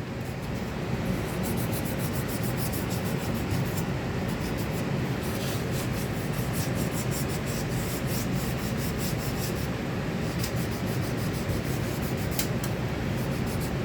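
Rapid, steady hand scrubbing of a copper pipe with an abrasive, cleaning the metal before soldering.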